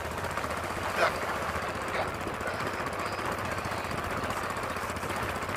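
Small boat's engine running steadily with a fast, even knocking beat, plus a couple of short sharp knocks about one and two seconds in.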